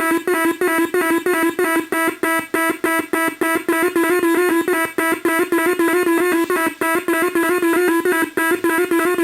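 Homemade electronic drone machine's audio oscillators: a steady electronic tone with higher tones above it, pulsed on and off in a fast, even rhythm of about five beats a second.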